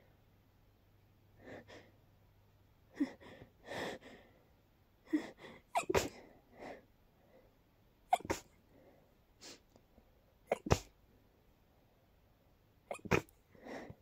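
A person in a sneezing fit set off by dust: a run of short, sharp sneezes with quick breaths between, several coming in close pairs.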